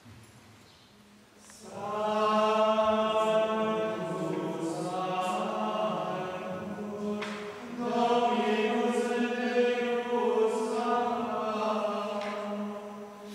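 Men's voices singing Gregorian chant, starting about a second and a half in, with a short break for breath about halfway through.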